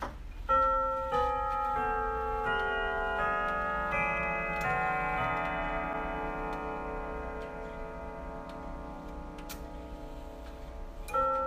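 Hermle grandfather clock playing its chime melody: about eight bell-like notes struck one after another, each ringing on and overlapping the next, then fading, with the next phrase starting near the end.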